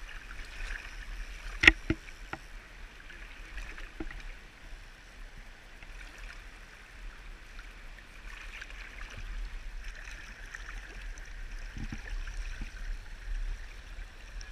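Shallow mountain stream rushing steadily over rocks and riffles around the wader, with one sharp knock just under two seconds in.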